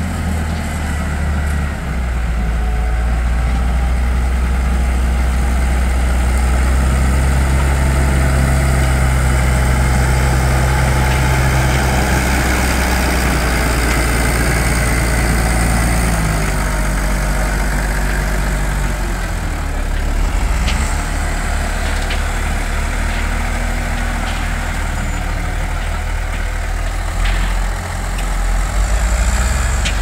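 New Holland T7040 tractor's diesel engine running steadily at close range, its engine speed shifting up and down a few times in the second half.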